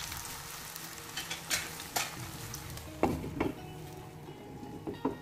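Bottle-gourd batter cake frying in oil in a pan: a steady sizzle that slowly fades. A utensil knocks and scrapes against the pan several times.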